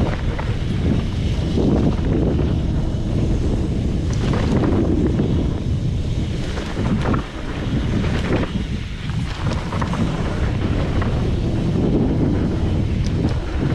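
Wind buffeting the microphone while a mountain bike rides a dirt trail, with a steady rumble and scattered short knocks and rattles from the bike.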